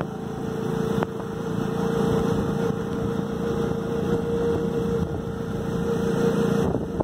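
Motorcycle engine running at a steady pace while riding, holding one even engine note.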